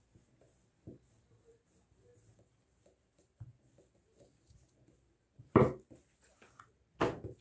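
Wooden rolling pin working a sheet of stiff dough on a counter, faint soft rolling and rubbing, then two short louder knocks, about five and a half and seven seconds in, as the pin is put down and handled on the worktop.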